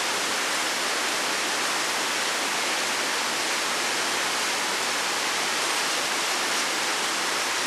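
Steady, even rushing noise that does not change, with no clicks or other distinct sounds in it.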